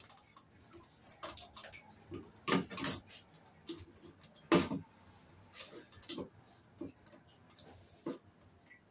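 Irregular small clicks and knocks of pliers and wire against a plastic light-fixture base as a wire loop is worked onto a terminal screw, with a few louder knocks about two and a half and four and a half seconds in.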